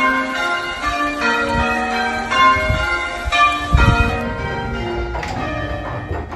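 Church tower bells rung full-circle in change ringing: a steady run of bell strokes, each ringing on over the next. A brief low rumble sounds about four seconds in.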